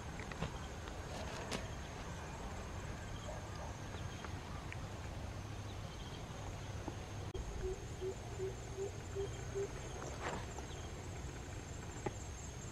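Insects droning in a steady high buzz over outdoor ambience, with a few twig snaps and rustles of brush being pushed aside. A run of six short low hoots comes in the middle.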